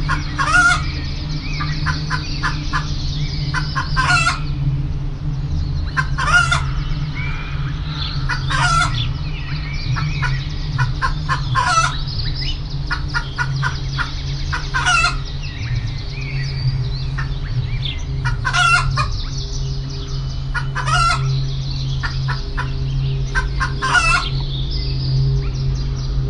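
Chickens clucking: a short call every two to three seconds, with softer clucks between, over a steady low hum.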